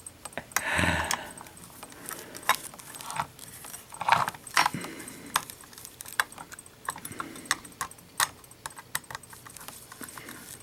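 Small metal parts clicking and clinking as the back cover of a practice combination safe lock is taken off and handled, with a short scrape about a second in.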